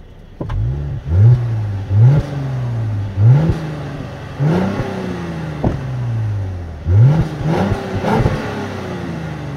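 Mercedes-Benz CLS 400's V6 engine heard at the exhaust tailpipe, revved while stationary: about seven quick throttle blips, each a fast rise in revs followed by a slower fall back to idle.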